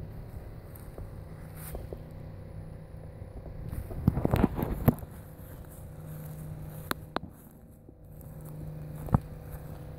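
A steady low motor hum, with loud rustling, scraping noise about halfway through and a few sharp clicks near the end.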